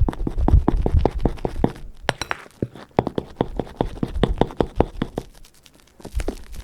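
Slime mixture being worked in a container: rapid, irregular sticky clicks and clinks, several a second, with some low thumps in the first second and a half.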